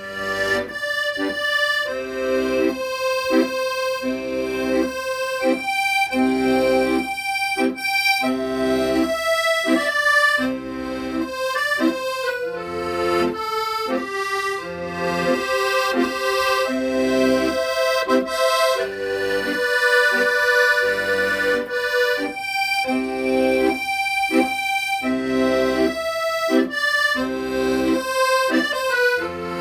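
Accordion playing a slow, sustained melody over a steady, regularly pulsing bass-and-chord accompaniment.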